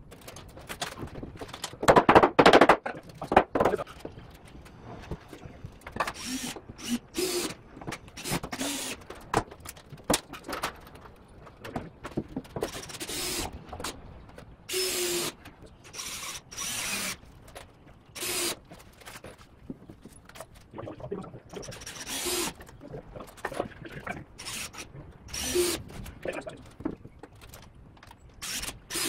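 Carpentry sounds from framing a wooden stud wall: short bursts of a cordless drill/driver driving screws into the studs, mixed with knocks and the clatter of lumber and tools.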